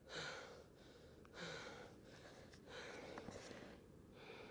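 A person breathing hard, out of breath after a long uphill climb: about four loud breaths, roughly one every second and a half.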